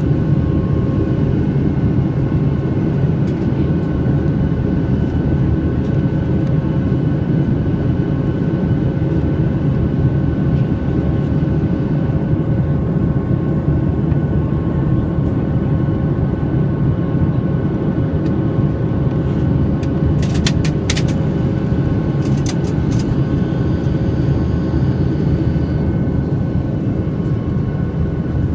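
Steady cabin noise inside a jet airliner in its climb: a constant low rumble of engines and airflow with a few faint steady hums. A handful of faint clicks come about twenty seconds in.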